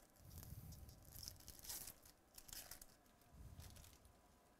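Faint rustling and sliding of baseball trading cards being flipped through by hand, in several short scratchy bursts.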